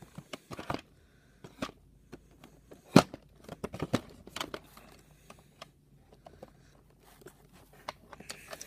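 Hands handling a toy blaster in its cardboard-and-plastic packaging: scattered rustles and small plastic clicks, with one sharp click about three seconds in and a quick run of smaller ones just after.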